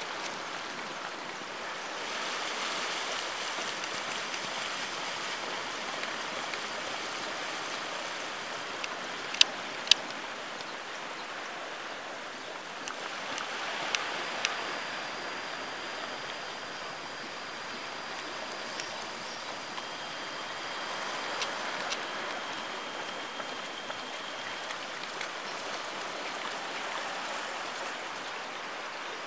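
A steady rushing hiss of outdoor background noise, with two sharp clicks a little past nine seconds in and another near fourteen seconds, and faint high steady tones in the middle.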